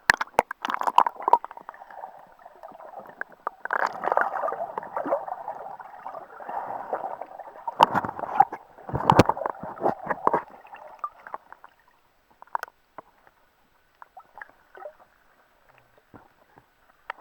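Sea water splashing and gurgling from someone swimming, in irregular bursts that are strongest over the first ten seconds or so, then fainter and sparser.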